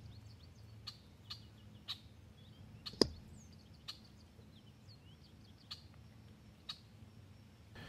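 A single sharp crack about three seconds in as a squirrel is shot with a quiet .30-calibre EDgun Leshiy Classic air rifle, among a few faint ticks and faint bird chirps.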